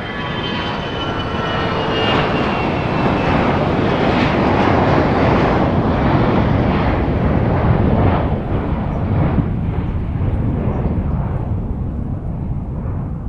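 Fokker 100's Rolls-Royce Tay 650-15 turbofans at takeoff power: a dense jet roar, with a high whine that falls in pitch over the first couple of seconds as the aircraft passes. The roar peaks about halfway through, then fades.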